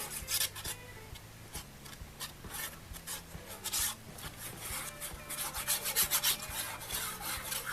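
Adhesive being rubbed onto the back of a cardstock piece: a run of short, scratchy rubbing strokes on paper.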